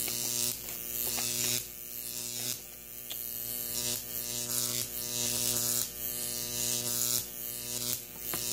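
Jacob's ladder: a 12,000-volt neon sign transformer's arc jumping between two copper wires, giving a loud electric buzz. The buzz cuts out briefly every second or so and starts again as the arc climbs the wires, breaks and re-strikes at the bottom.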